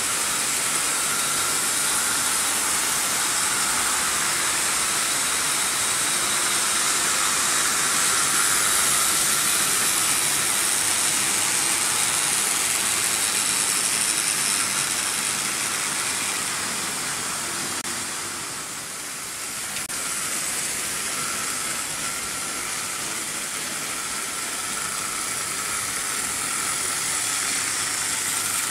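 Several Märklin H0 model trains running at once on pressed-steel M-track: a steady rolling rattle of metal wheels on the track together with the whir of their AC motors. It eases briefly about two-thirds of the way through, then builds again.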